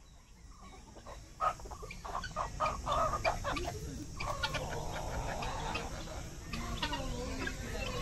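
Birds calling: a run of short, quick clucking calls, then a longer drawn-out call about halfway through, followed by more calls.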